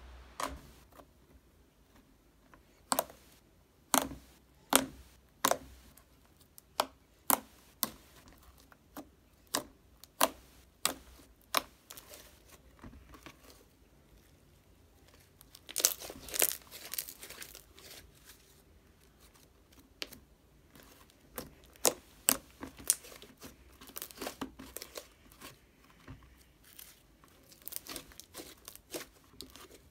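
Homemade glue slime being kneaded, squeezed and stretched by hand, giving irregular sharp pops and clicks as air pockets in it are squeezed out. The popping comes faster in a busy stretch about halfway through and again a little later.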